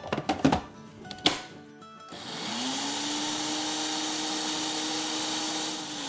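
Electric spice grinder grinding semolina fine: a few clicks and knocks as the cup is seated, then about two seconds in the motor spins up with a rising whine and runs steadily.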